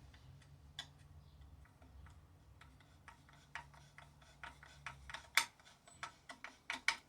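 Irregular light metallic clicks and taps of hand work fitting the bar and chain on a McCulloch Pro Mac chainsaw, coming quicker near the end, over a faint low hum.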